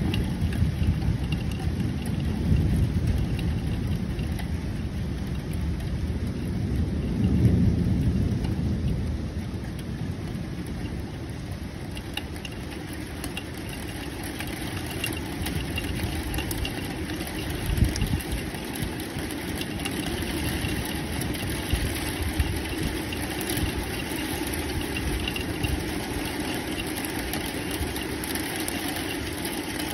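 Thunderstorm: steady heavy rain with low rolling thunder that swells in the first few seconds and again about a quarter of the way in, and one short sharp crack a little past halfway.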